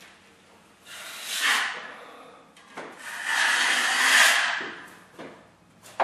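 Drywall knife spreading joint compound along an inside corner: two scraping strokes, a short one about a second in and a longer, louder one from about three to nearly five seconds.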